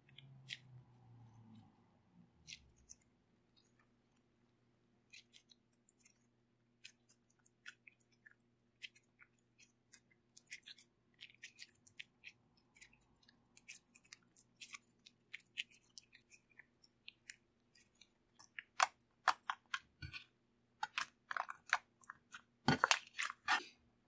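Makeup slime being kneaded and stretched by hand: a run of sticky clicks and small pops that grows louder and denser over the last few seconds.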